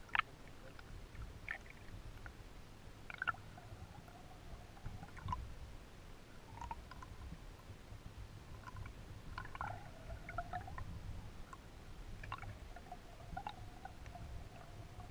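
Muffled underwater sound heard through a GoPro's waterproof housing: a steady low rumble with scattered small clicks and taps, the sharpest just after the start.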